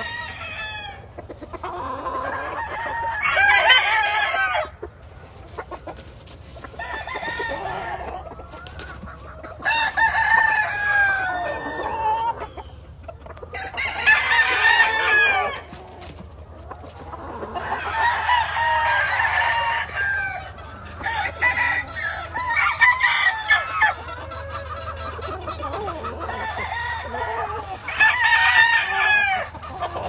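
Gamefowl roosters crowing again and again, a crow every few seconds, some overlapping, with clucking between the crows.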